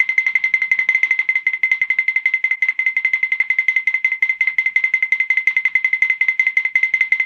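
A small bell ringing continuously, struck in rapid, even strokes many times a second on one steady high pitch.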